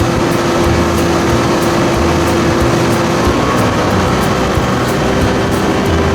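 Boat's outboard motor running at speed under way, over water and wind noise; its pitch steps up slightly about three seconds in.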